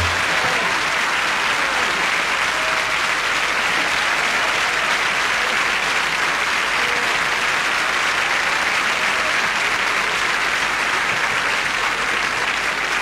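Studio audience applauding, a long, steady round of clapping that eases slightly near the end.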